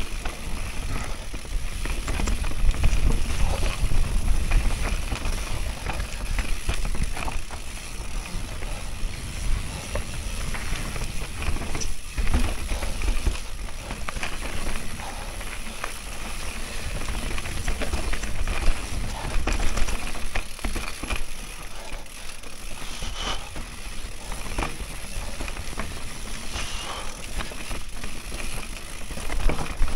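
Enduro mountain bike descending a dirt forest trail: tyres rolling over dirt and roots, with frequent short rattles and knocks from the bike over bumps and a steady rumble of wind on the microphone.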